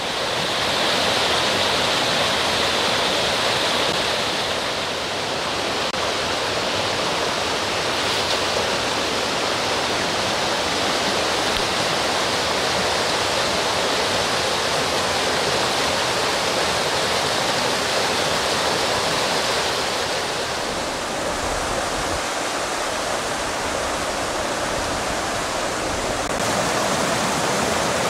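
Mountain stream rushing over granite boulders and small cascades: a steady, loud rush of water, its tone shifting slightly about 20 seconds in and again near the end.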